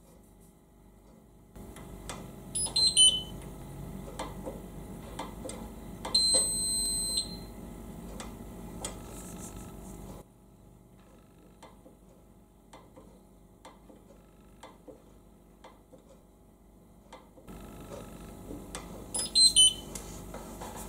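Electronic beeps from the Indesit DIE 2B19 dishwasher's control panel: a quick run of falling tones as it switches on, a single high beep about a second long a few seconds later, and another run of falling tones near the end as it switches off. A low hum sits underneath.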